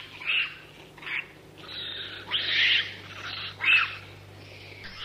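Monkey squealing: a run of about seven short, high-pitched calls, a few of them falling in pitch, over a steady low hum.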